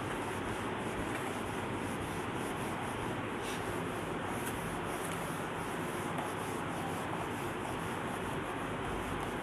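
A cloth duster rubbing across a whiteboard, wiping off marker writing in repeated strokes, over a steady background hiss.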